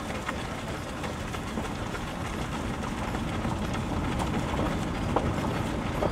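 Steady low rumble of a slow-moving vehicle on a dirt road, with scattered light ticks of gravel and running footsteps from a pack of runners.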